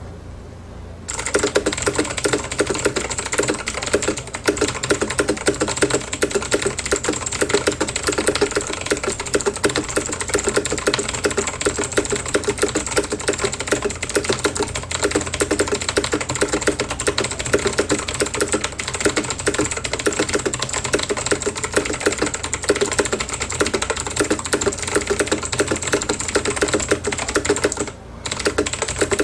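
Fast typing on a VAVA Chroma mechanical keyboard with clicky Kailh Blue switches: a dense, continuous clatter of key clicks that starts about a second in and pauses briefly near the end.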